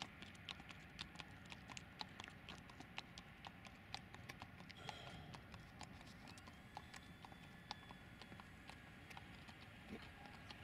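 Near silence, with faint irregular clicks and ticks several times a second over a low background hiss.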